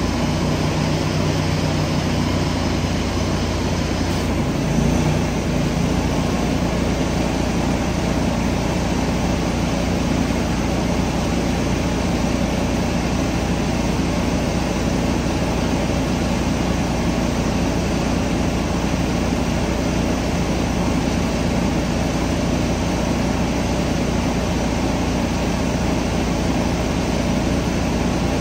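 A small engine running steadily, plausibly the spray rig's pump engine, under the hiss of water spraying from a hose nozzle. Its tone shifts slightly about four to five seconds in.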